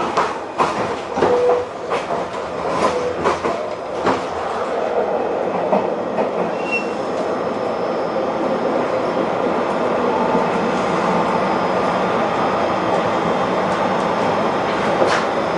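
JR Shikoku 2000 series tilting diesel railcar, heard from inside the carriage as it rolls in to a stop at the terminal. Wheels click over rail joints and points several times in the first few seconds, then settle into an even running rumble, with a brief high wheel squeal about seven seconds in and one more click near the end.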